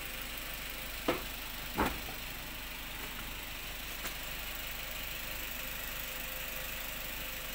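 Daihatsu Gran Max engine idling steadily. Two short knocks, about a second in and just under two seconds in, come from the air filter and its housing being handled.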